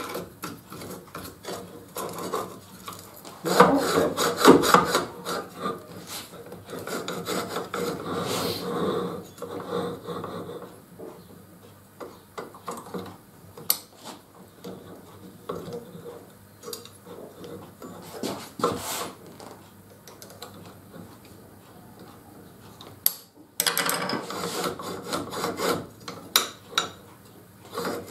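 Metal handling sounds on a saw blade sharpening machine: rubbing, scraping and scattered light clicks as a circular saw blade is fitted on, its hub knob screwed down and the blade shifted into place on the carriage. The rubbing and scraping come louder in stretches, about three seconds in and again near the end.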